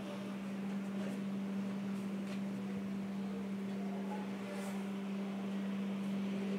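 A steady low hum with background hiss, with faint, soft rustles of a hand mixing dry flour and chopped fenugreek leaves in a steel bowl.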